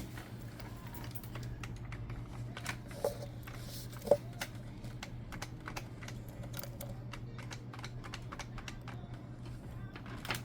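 Scattered light clicks and taps of hands working on small switches and parts, over a steady low hum. Two sharper knocks come about three and four seconds in.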